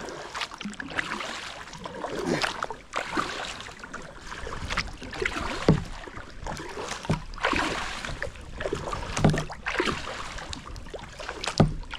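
A double-bladed kayak paddle stroking through the water, alternating sides, with a splash and swish every second or so. A few sharper knocks stand out, about halfway through and near the end.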